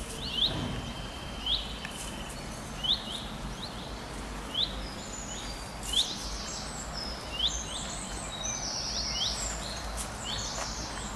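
Songbirds calling: one bird repeats a short, quickly rising chirp about once a second, and from about halfway in, other birds twitter higher and faster, all over a steady background hiss.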